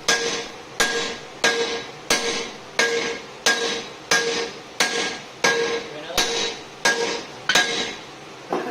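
Hand hammer blows on hot steel at the anvil in a steady rhythm, about three blows every two seconds, each with a short bright metallic ring.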